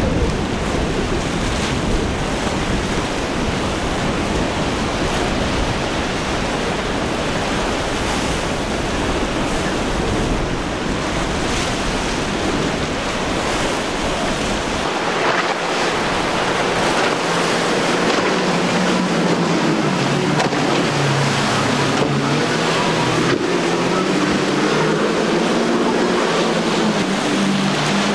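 Rough surf with wind rumbling on the microphone. From about halfway, the hum of outboard motors comes in, rising and falling in pitch and then holding steady near the end.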